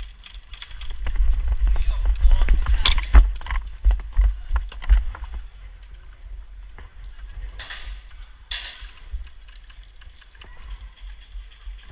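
A player moving fast on foot: heavy uneven footfalls thudding on the camera's microphone, with clicks of gear, for a few seconds. Two short noisy bursts come about eight seconds in.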